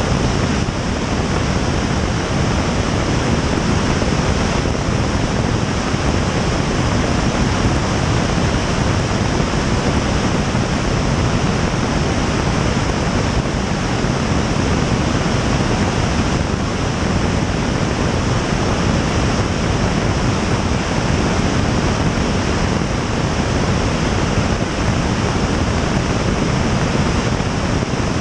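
Steady rush of wind over a camera mounted outside on the tail of a Piper Tomahawk in cruise flight, a loud even noise that masks any engine sound.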